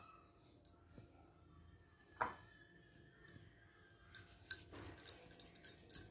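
Faint kitchen handling sounds from hands working soft dough in a ceramic bowl: a soft knock about two seconds in, then a run of light crisp clicks and rustles in the last two seconds.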